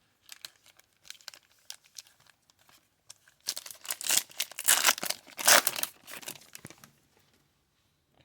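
Crinkling and rustling of plastic as trading cards are handled, with faint scattered rustles and clicks at first and a loud run of crinkling from about three and a half to seven seconds in.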